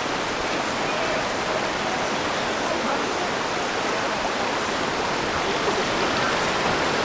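Katashina River water rushing over the rocks at Fukiware Falls: a steady, unbroken roar of water.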